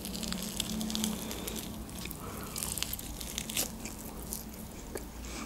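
Close-miked eating sounds: teeth biting and tearing grilled shashlik meat off a rib bone, with small wet clicks and crackles of chewing.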